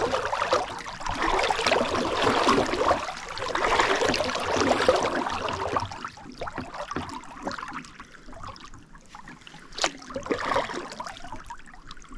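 Kayak paddle strokes splashing and swishing through the water, swelling about every two seconds, then growing quieter about halfway through with a single louder splash near the end.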